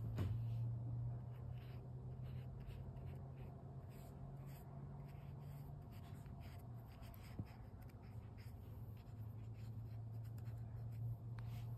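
Soft, faint scratching of a flat watercolour brush dabbing and stroking paint onto drawing paper, many short strokes, over a steady low hum.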